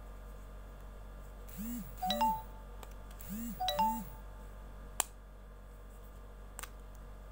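Two short electronic chimes from inPods 12 wireless earbuds, about a second and a half apart: their prompt tones. A single sharp click follows about five seconds in as the plastic charging case's lid snaps shut.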